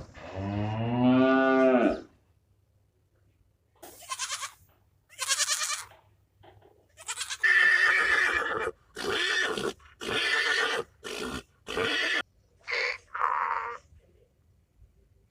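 Farm animals calling: one low, drawn-out call at the start, then after a pause a string of shorter calls in quick succession.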